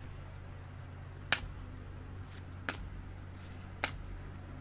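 A steady low hum with three sharp, light taps about a second apart and a few fainter ticks between them.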